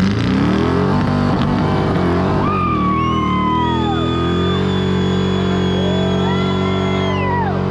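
An off-road vehicle's engine revving up and held at high revs, then cut off suddenly near the end, with high whining tones over it.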